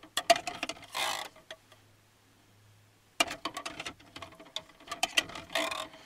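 Spoon scraping and clinking against the inside of a tin can, getting out the last of the food: a run of small clicks and scrapes, a pause of about a second and a half, then a quicker run of clicks.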